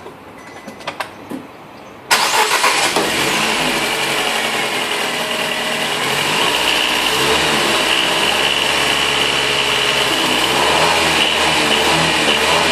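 A few light clicks, then a 2012 Nissan Tiida SL's engine cranks and starts suddenly about two seconds in and settles into a steady idle with a high-pitched tone running over it. The engine carries the creaking noise the owner complains of, which the factory judged normal after the timing chain tensioners were replaced.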